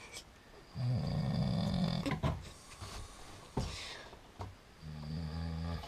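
A man snoring in his sleep: two long snores, the first about a second in and the second near the end, with a couple of short clicks in between.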